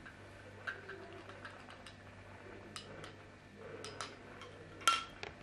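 Ice clinking in a glass of iced coffee: scattered light clicks, each with a short glassy ring, the loudest near the end.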